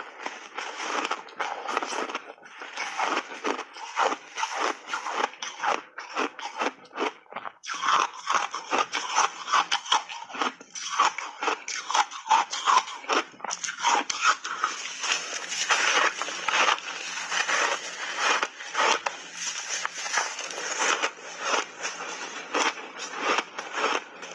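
Close-up biting and chewing of refrozen block ice, a rapid run of sharp crunches. It pauses briefly about seven seconds in, then comes back denser and louder.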